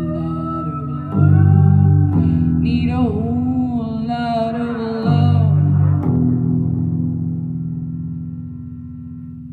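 Live song played on guitar over deep, held bass notes, ending on a final chord that rings out and slowly fades over the last few seconds.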